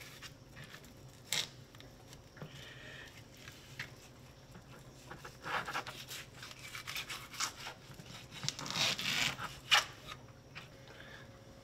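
Fillet knife scraping and sliding along a plastic cutting board as it cuts the skin off a jack crevalle fillet, in short irregular strokes that come thickest in the second half. A single sharp tap near the end is the loudest sound.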